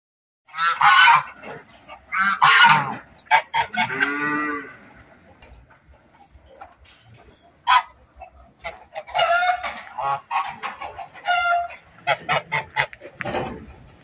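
Domestic geese honking: loud, repeated calls in the first few seconds, a lull, then a quick run of honks over the last third.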